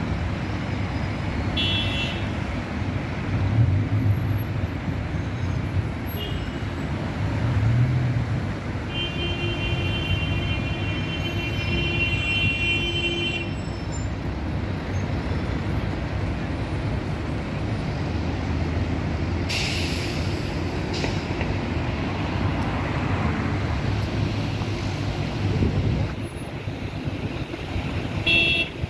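Busy city road traffic with buses passing, a steady low rumble of engines and tyres. Near the middle, a steady high horn-like tone sounds for about four seconds, and about two-thirds through, a short hiss of air is released.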